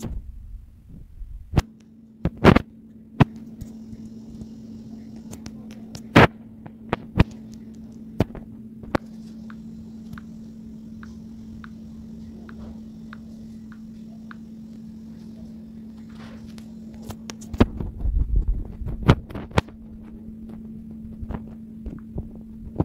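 Irregular sharp taps, typical of a finger or stylus tapping and drawing on a phone's touchscreen close to its microphone, over a steady low hum, with a short low rumble about three quarters of the way through.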